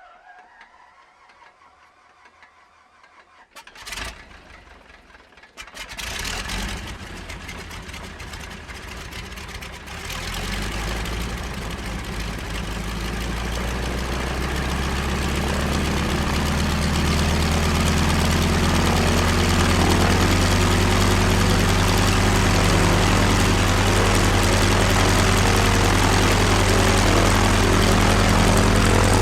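Single-engine propeller aeroplane's piston engine starting up. After a click about four seconds in, the engine turns over from about six seconds and catches about ten seconds in, then grows louder over several seconds to a steady drone.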